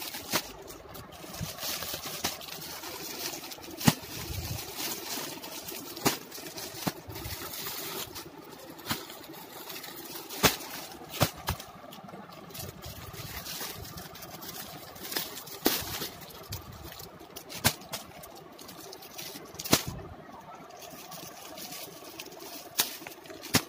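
Clear plastic garment packets rustling and crinkling as they are handled and shifted, with sharp crackles and snaps at irregular intervals.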